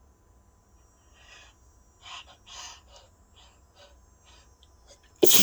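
A person's short, sharp in-breaths and sniffs as a grass stalk tickles the nose, then a sudden loud sneeze near the end.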